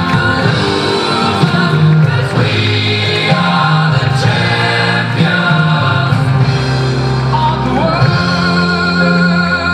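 Loud music with singing: long held sung notes over a steady bass line, the chords shifting every second or two.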